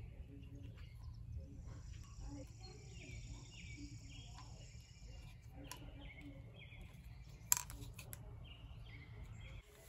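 Outdoor ambience: birds chirping over and over above a low steady rumble, with a high steady hiss that stops about halfway through. A single sharp click comes about three-quarters of the way in.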